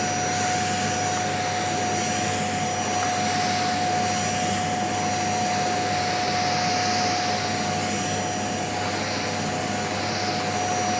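Vacuum cleaner running steadily: a constant motor whine over a rushing airflow noise.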